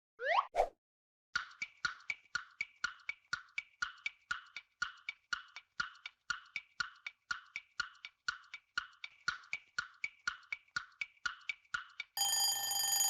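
Quiz countdown timer sound effects: a short rising glide, then clock ticking at about four ticks a second for about ten seconds, ending in a ringing bell near the end that signals time is up.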